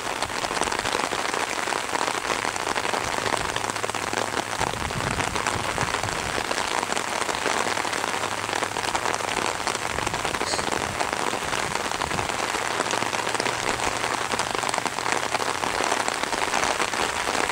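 Steady rain falling in a dense, even patter that never lets up.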